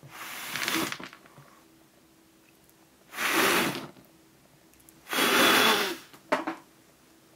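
A person blowing out a cluster of candles: three long breaths, each about a second, at the start, about three seconds in and about five seconds in, then one short puff.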